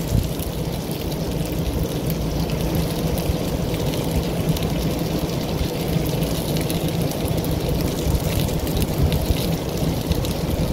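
Chicken thighs and peppers sizzling on a hot Blackstone flat-top griddle, a steady frying hiss with scattered small crackles over a constant low rumble.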